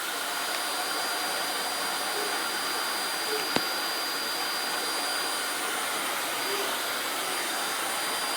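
Vacuum cleaner running steadily, an even rush of air with a thin high whine, and one sharp click about three and a half seconds in.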